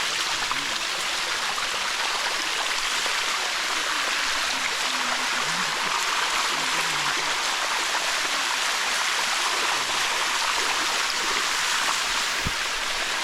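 Water of the Bua Tong sticky waterfall rushing steadily over the rock, a constant even hiss.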